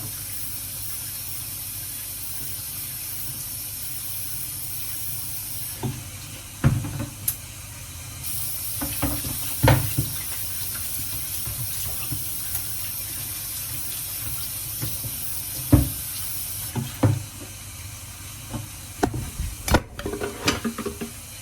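Kitchen tap running water into a sink, with knocks and clatters of handling at intervals and a quick run of them near the end.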